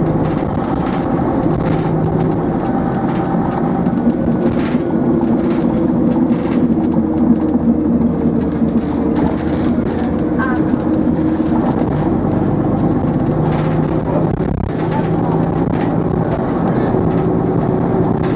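Metro-Scania single-deck bus engine running while the bus is under way, heard from inside the passenger saloon. Its steady engine note shifts in pitch a few times.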